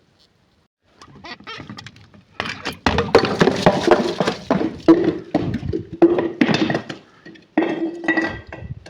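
Glass being crushed: a dense run of crackling and cracking with clinks, starting about a second in and coming in loud clusters until near the end.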